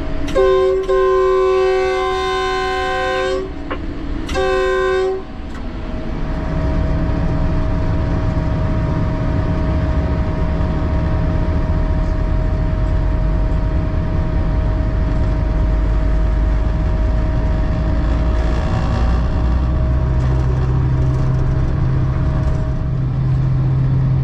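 Locomotive horn sounded from inside the cab: one long blast of about three seconds, then a short one. The locomotive then runs on under the horn's silence, a steady low rumble of engine and wheels with a thin steady whine; near the end the engine note deepens and grows stronger.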